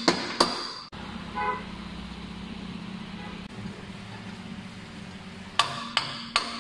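Sharp, ringing hammer blows, about two a second, at the start and again from near the end, as the control-arm bushings are driven out and in. Between them is a steady low hum with one short beep about a second and a half in.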